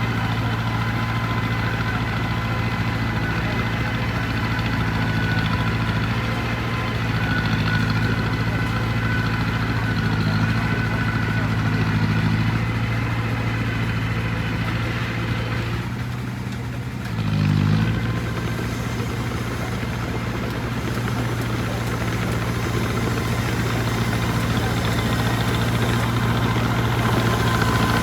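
Heavy construction machine's engine running steadily, dipping briefly and wavering in pitch about two-thirds of the way through.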